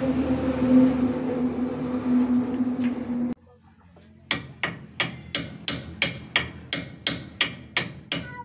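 A steady machine hum with a low drone that cuts off suddenly about three seconds in. After a short pause, a hammer strikes steel in an even rhythm of about three ringing blows a second.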